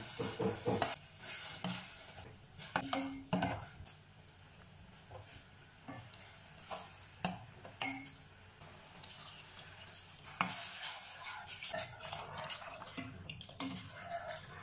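Coconut milk pours into a stainless steel pot of diced purple sweet potato. Then a spatula stirs the mixture, with irregular scrapes and knocks against the metal pot.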